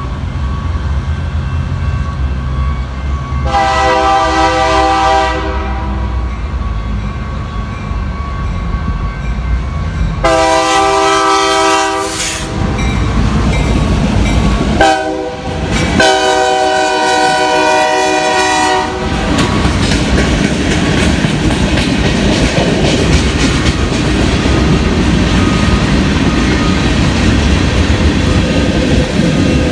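BNSF freight train's diesel locomotives passing and sounding the air horn in the grade-crossing pattern: long, long, short, long, over the engines' rumble. After the last blast the freight cars roll by with a steady clatter of wheels on rail.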